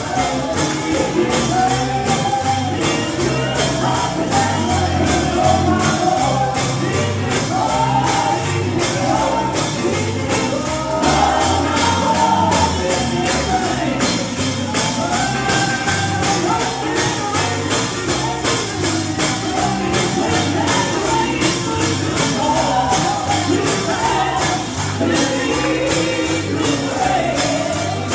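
Live gospel music in a church: voices singing a melody over a band with a pulsing bass line, and a tambourine shaken on a steady beat throughout.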